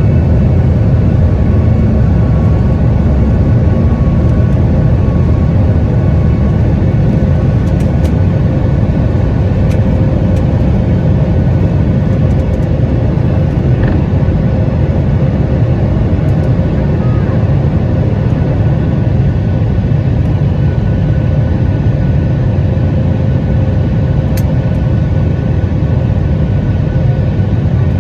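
Steady cabin noise inside a Boeing 737 MAX 8 airliner: a loud low rumble of the engines and airflow with a constant hum over it.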